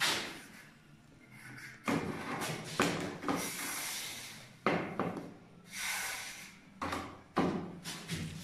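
Long aluminium plastering rule worked over fresh cement plaster and scraped clean on the rim of a mortar bucket: several sharp knocks of the rule, with two longer scrapes in the middle.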